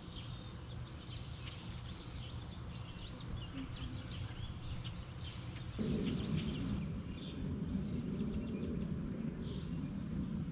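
Outdoor ambience of small birds chirping and calling in short, quick notes over a steady low background noise. About six seconds in, a louder low rumble steps in under the birdsong.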